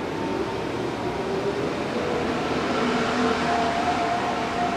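Steady street noise: the even rush of passing traffic, with a few faint steady tones underneath.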